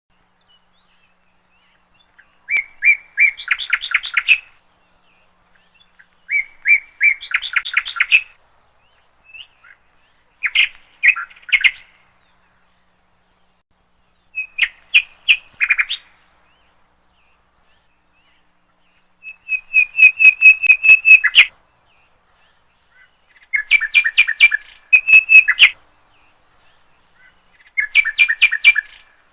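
A songbird singing, seven short phrases of a few seconds each with brief pauses between them; each phrase starts with a few clear notes and runs into a quick series of rapid notes.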